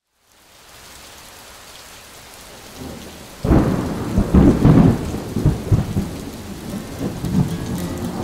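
A thunderstorm: steady rain fades in, then a sudden loud clap of thunder about three and a half seconds in rolls and rumbles on to the end, with crackling peaks.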